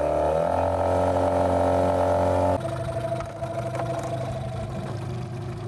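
Small dinghy outboard motor running under test, its pitch rising briefly as it revs near the start and then holding steady. About two and a half seconds in, the sound drops suddenly to a quieter, rougher running.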